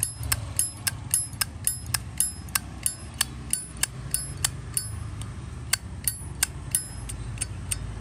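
1998 Zippo lighter's lid being flicked open and snapped shut over and over, a fast string of sharp metallic clicks at about three or four a second, each with a bright ring, pausing briefly past the middle and stopping just before the end.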